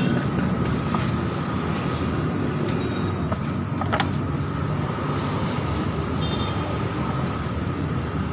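Steady road traffic noise of passing vehicles, with two sharp knocks, about one and four seconds in.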